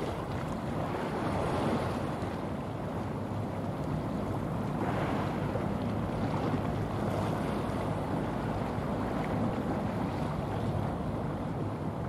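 Wind buffeting the microphone over the wash of water in a busy strait, with a low, steady hum underneath.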